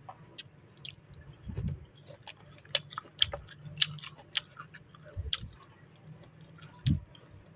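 A person chewing crisp salak pondoh (snake fruit) close to the microphone: irregular small crunches and clicks, with a few soft low thumps.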